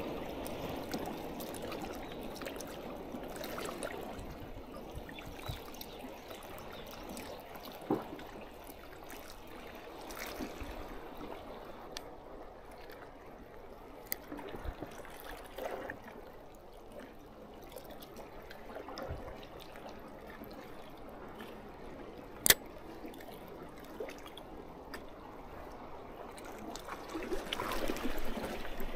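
Seawater lapping and trickling among concrete tetrapods and rocks at the water's edge, with scattered light clicks and one sharp click about three quarters of the way through. The water sound grows louder near the end.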